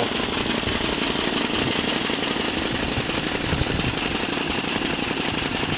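Small Connors steam beam engine running steadily: a rapid, even mechanical clatter over a hiss of steam.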